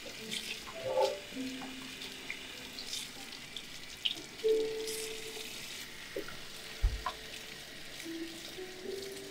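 Steady hiss of running water under soft background music of slow held notes, with a few small clicks and a low thump about seven seconds in.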